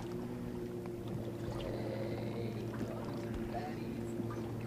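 Steady low hum of a fishing boat's motor running, a drone holding a few constant tones.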